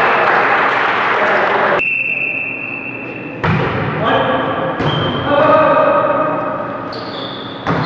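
Indoor volleyball rally: ball strikes and players' shouts, echoing in a large sports hall.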